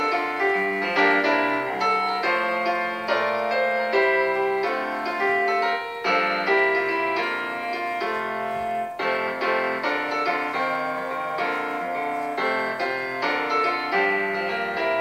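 Piano music, starting suddenly and running on as a busy stream of struck notes.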